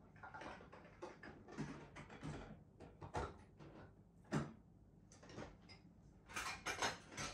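Quiet room with scattered soft clicks and rustles: a sharp click about four and a half seconds in and a quick cluster of clicks near the end.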